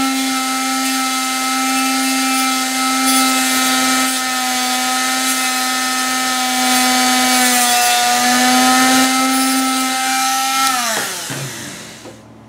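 Handheld rotary tool (motor tool) with a thin cutting disc running at high speed, trimming a small plastic tablet button piece, with a steady high whine. The pitch dips briefly about eight seconds in. Near the end the tool is switched off and the whine falls in pitch as the disc spins down.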